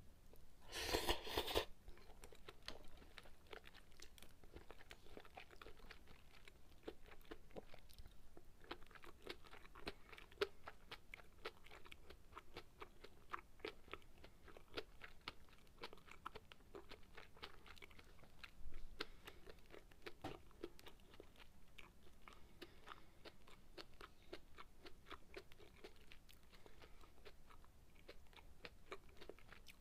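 Close-miked chewing and mouth sounds of a person eating sukiyaki and rice: a steady run of small wet clicks and soft crunches. About a second in there is a short, louder rush of noise.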